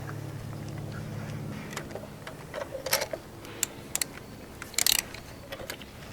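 Hand tools clicking and clinking under the hood during spark plug work: a few separate sharp clicks, then a short metallic rattle about five seconds in.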